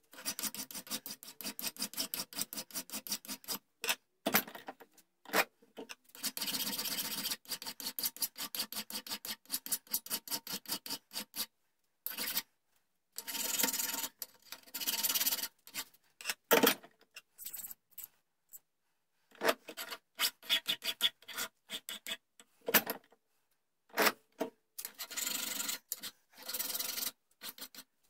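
Flat hand file rasping back and forth over a small brass piece held in a bench vise, in quick strokes, in runs of several seconds with short pauses between: the hook is being filed out to shape.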